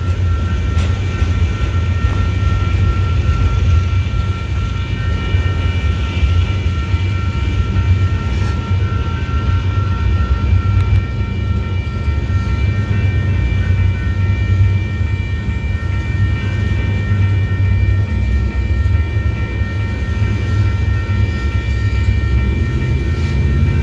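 Freight train of loaded flatcars rolling past at close range: a steady low rumble with thin, steady high-pitched tones above it.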